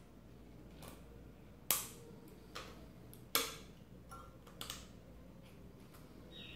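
Small shears snipping the edge of a thin aluminium capacitor stator plate: about six sharp clicks spread over four seconds, two of them louder than the rest.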